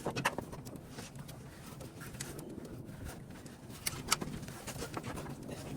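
Scattered metallic clicks and knocks as a replacement starter motor is handled and fitted into place, with a low background hum.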